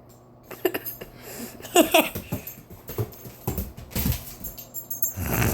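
Dog scrambling after a light, its paws and claws pattering and knocking on the floor in quick irregular bursts, with a short whining sound about two seconds in.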